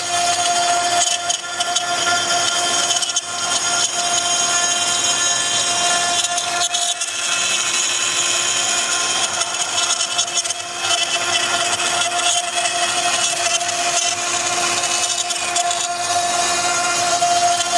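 CNC wood router's 3.5 kW spindle carving wood: a steady whine over the hiss of the cutting bit, dipping briefly now and then as the tool moves through the cut.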